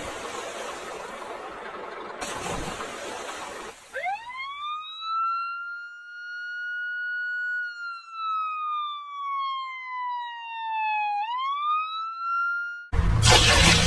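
Siren sound effect: one clean tone winds up quickly, holds, slowly falls over several seconds, then winds up again before cutting off. It follows a few seconds of rough noise and gives way to a loud burst of noise near the end.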